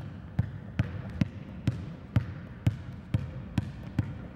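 A basketball dribbled steadily on a hardwood gym floor, bouncing about twice a second.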